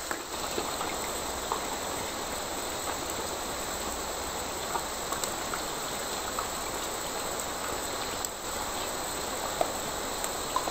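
Steady rain falling on dense foliage: an even hiss with a few faint ticks.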